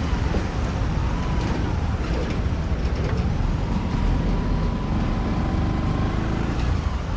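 Steady rumble of road traffic, with a faint wavering whine running through it.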